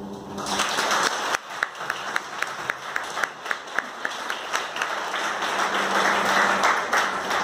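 Small audience applauding after a song ends, starting about half a second in, with one person's close, sharp claps at about four a second standing out; the applause grows denser near the end.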